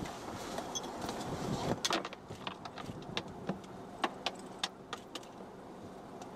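A steady rushing background with scattered short, sharp clicks and taps, coming thickest from about two seconds in.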